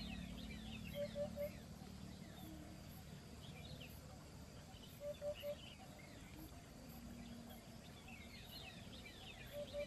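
Birds calling: one bird repeats a call of three short, low notes about every four seconds, while others give quick, high, falling chirps, thickest near the start and near the end. A steady low background noise runs underneath.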